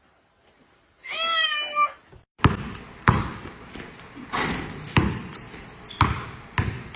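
A cat meows once, a wavering meow lasting about a second. It is followed by a run of irregular knocks and thumps.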